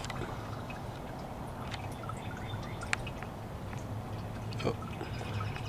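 Water dripping: a few separate drips and small ticks over a low steady hum.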